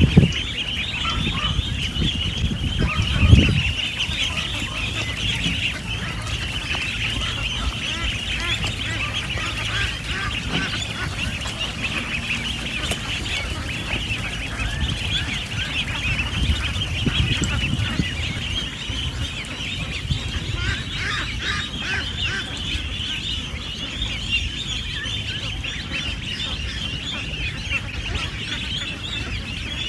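A dense chorus of many young poultry hatchlings peeping nonstop at a high pitch, with a couple of low thumps in the first few seconds.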